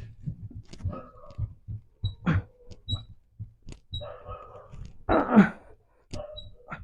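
A man straining against a 31 kg table-pulley load in a cupping-handle arm-wrestling exercise: effortful breaths and grunts, the loudest grunt falling in pitch about five seconds in, over irregular low thumps. The pull is a struggle.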